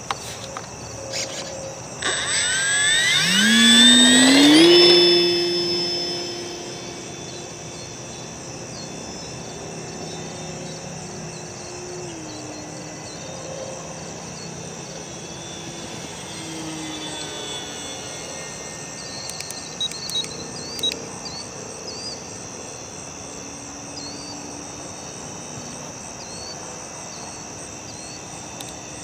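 Electric motor and propeller of an FMS Firefly RC plane throttling up with a rising whine about two seconds in, loudest around four seconds. It then runs at a steadier pitch and fades as the plane flies away. Crickets chirp steadily throughout.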